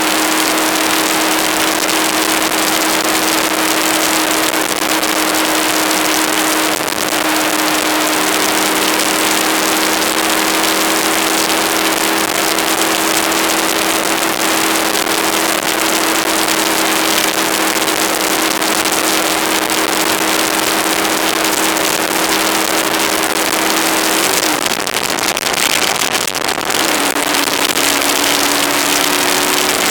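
Aprilia ETV1000 Caponord's V-twin engine running at a steady cruise under heavy wind rush on the microphone. About 25 seconds in, the engine note falls, then slowly climbs again near the end.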